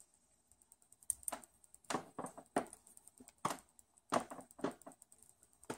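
Plastic tip of an HP stylus pen tapping on a laptop's glass touchscreen: about eight short, irregularly spaced taps and clicks.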